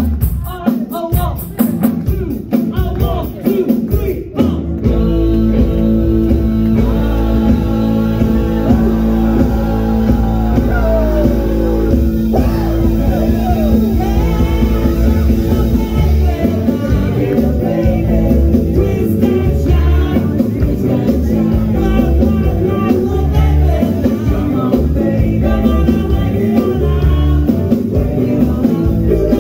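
Rock music with a singer. It starts as choppy, rhythmic hits and about four seconds in becomes a fuller, steady band sound with sustained notes.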